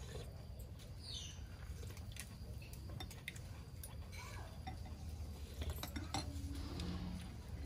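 Chopsticks and spoons clinking now and then against ceramic soup bowls as two people eat.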